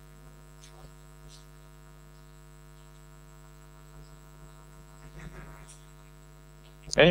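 Steady electrical mains hum from the sound system, many even tones held without change. A faint murmur of voices comes in about five seconds in, and a man's voice starts at the very end.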